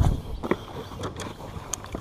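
A low thump, then a few light knocks and clicks spread across two seconds: handling noise on a small fishing boat.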